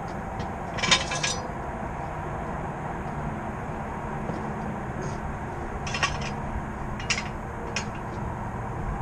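Steady tyre and road noise from the wheel well of a BMW E46 325xi on the move, broken by about four short, sharp metallic clicks or knocks, the loudest about a second in; the owner is trying to diagnose a clunk from this corner.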